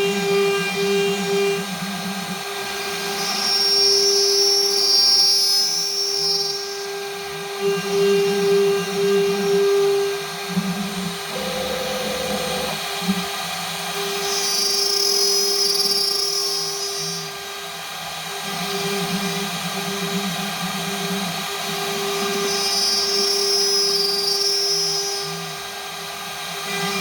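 A homemade CNC router's 1.5 kW air-cooled spindle runs at a steady high speed while the machine cuts mounting holes into its spoilboard. The sound swells three times, about nine seconds apart, each time with a higher whine added.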